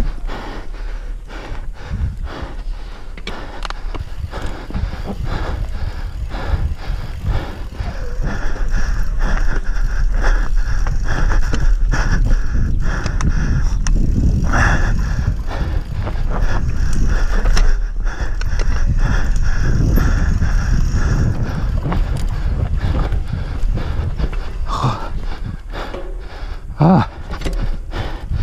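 Mountain bike descending a dirt forest trail at speed: tyres rumbling over loose soil and roots, with a constant clatter of knocks and rattles from the bike over bumps. Louder and denser through the middle stretch.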